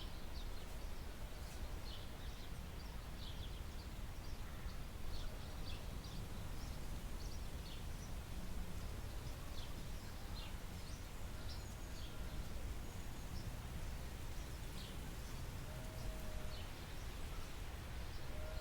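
Woodland ambience: small birds giving short, high chirps scattered throughout, over a steady low background rumble.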